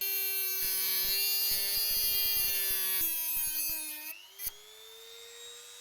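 Power tool cutting through a steel handbrake cable: a steady, high-pitched whine that drops in level about four seconds in, its pitch then rising slightly as the load comes off.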